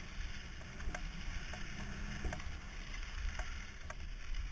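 Wind rumbling over a helmet-mounted camera's microphone as a BMX rolls along an asphalt track, with scattered light clicks.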